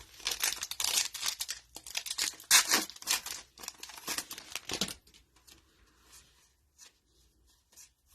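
Foil wrapper of a trading-card pack being torn open and crinkled: a quick run of ripping and crackling rustles for about five seconds, then only faint light rustles.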